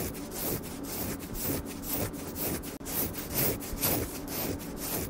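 Rhythmic back-and-forth rasping strokes, like rubbing or scraping on a rough surface, repeating evenly about two to three times a second.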